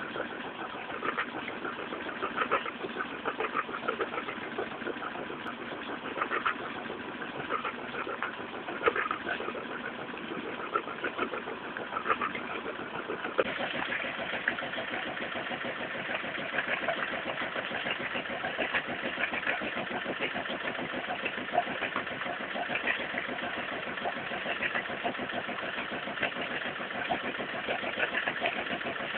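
Exhaust outlet of a Volvo Penta MD7B two-cylinder marine diesel, running with an even train of exhaust pulses at about 800 rpm. About halfway through it speeds up to about 1200 rpm, and the pulses come faster and sound harder.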